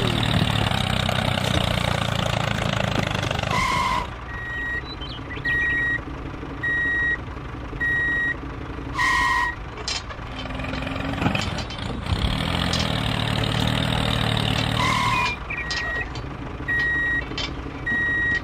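A heavy vehicle engine running, then a reversing alarm that starts about four seconds in and beeps roughly once every 1.2 seconds, with breaks. The engine rumbles back up in the second half, and a few louder short tones stand out among the beeps.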